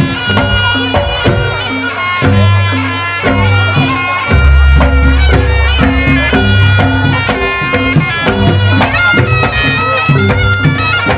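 Live East Javanese jaranan gamelan music: a shrill double-reed slompret plays a wavering, ornamented melody over kendang drum strokes and deep, repeated gong bass notes.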